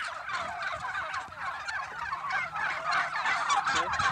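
A large flock of white domestic turkeys calling all at once: many overlapping, wavering calls that merge into one continuous din.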